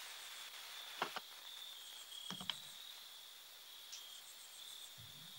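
Faint cricket chirping, a steady high-pitched trill that breaks off and resumes, with a few soft clicks about a second and two and a half seconds in.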